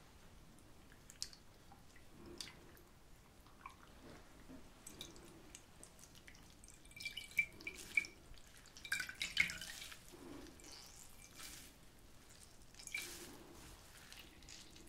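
A wet cloth squeezed and worked over a bowl of water: soft drips and small trickles, a few at first, then a cluster in the middle and more near the end.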